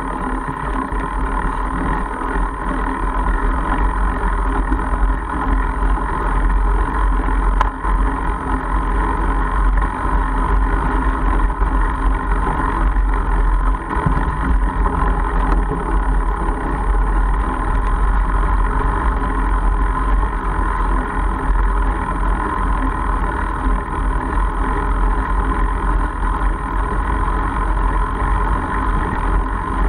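Steady rumbling noise of a Mongoose Argus fat bike rolling along a dirt and gravel forest track, picked up by a camera mounted on the bike.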